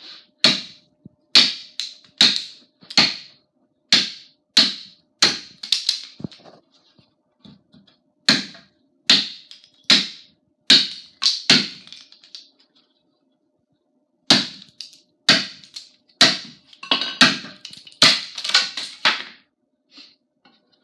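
Forged tomahawk chopping into a wooden 2x4: sharp, separate chops about one a second, in three runs with short pauses between them, the blows coming faster near the end.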